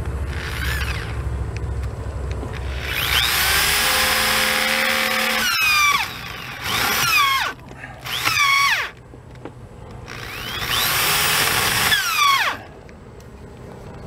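Electric drill boring a small hole in the top of a clear plastic sewer-hose adapter, run in several bursts. Each time the motor whines up to speed and winds down again; the longest burst is the first loud one, about three seconds in. A low steady hum lies under the first few seconds.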